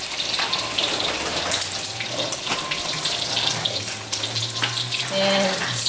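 Eggs frying in hot oil in a wok over a gas flame: a steady sizzle with scattered crackles and pops.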